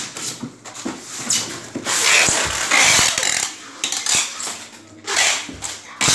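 Styrofoam boxes being handled and sealed: a series of short rasping rubs and pulls, several of them with pauses in between.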